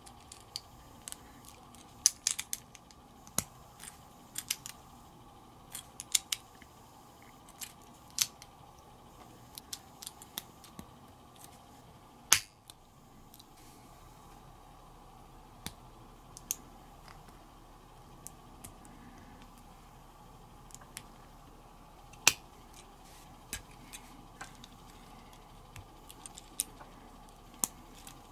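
Small plastic building bricks clicking and snapping as they are pressed together and handled: irregular sharp clicks at an uneven pace, with a few much louder snaps.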